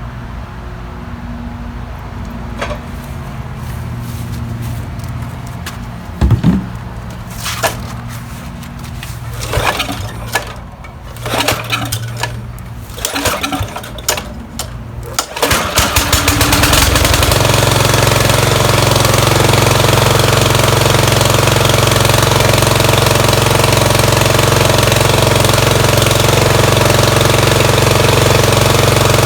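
Briggs & Stratton Vanguard 14 HP mower engine being pull-started with its repaired recoil starter: a series of clanks and rattles from the pulls, then about sixteen seconds in the engine catches and runs steadily and loud.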